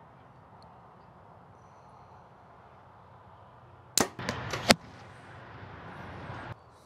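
A Mathews V3X 29 compound bow shot: a sharp snap of the string at release about four seconds in, then under a second later a louder crack as the arrow strikes the foam target.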